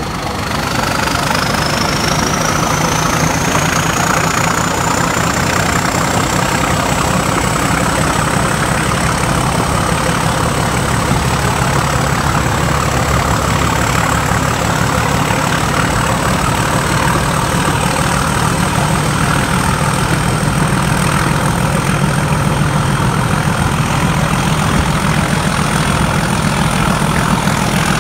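Heritage diesel-hauled passenger train running along the line, heard from an open coach window: a steady engine-and-running noise that grows louder over the first second or two. A high whine rises in pitch over the first eight seconds or so, then holds steady.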